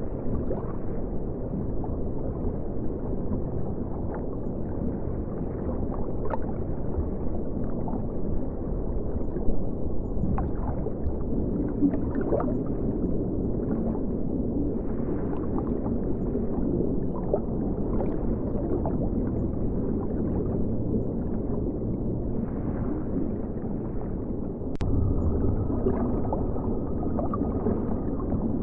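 Steady, muffled gurgling of river water with scattered small ticks and pops, as heard by a camera set in the river among the fish. About 25 seconds in there is a sharp click, the low rumble grows a little louder, and a faint steady tone runs near the end.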